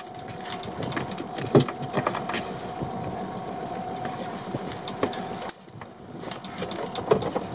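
A steady mechanical hum that cuts off about five and a half seconds in, with scattered knocks and clicks as caught horse mackerel and fishing tackle are handled on a small boat's deck.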